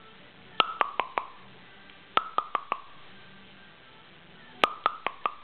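Rapid tongue clicks in three quick runs of four, each click with a short ringing pitch that falls slightly, made to catch a puppy's attention.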